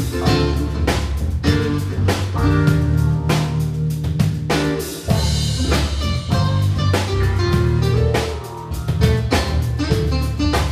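A live band playing: a drum kit keeping a busy, steady beat under guitar and held low bass notes.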